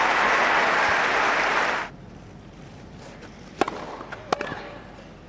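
Tennis crowd applauding, cut off abruptly about two seconds in. Then a rally is under way: a tennis ball is struck by rackets twice, about two-thirds of a second apart, with a few fainter taps after.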